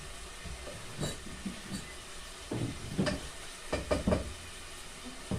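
Onion, garlic and tomato sizzling as they sauté in a pan, with a spatula knocking and scraping against the pan in a run of strokes through the middle.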